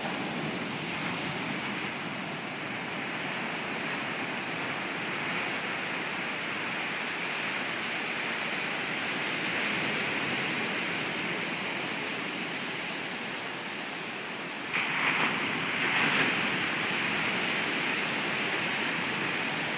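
Ocean surf breaking and washing up a sand beach, a steady rushing noise, with a louder surge about fifteen seconds in.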